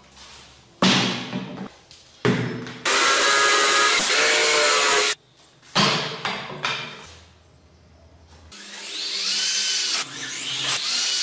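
Cordless drill/driver driving screws through wooden seat slats into a metal chair frame, its motor whining up and slowing down in repeated short runs near the end. Earlier there are short bursts of tool noise and a steady power-tool run of about two seconds.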